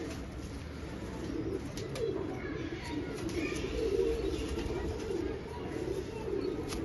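Domestic pigeons cooing, a continuous run of low, warbling coos.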